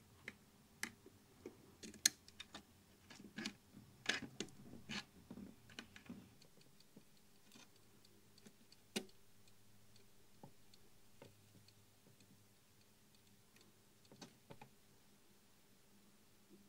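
Small sharp clicks and ticks of pliers handling a wire lead against a tube socket's metal lugs, coming thick for the first six seconds or so, then only a few scattered clicks. A faint steady hum runs underneath.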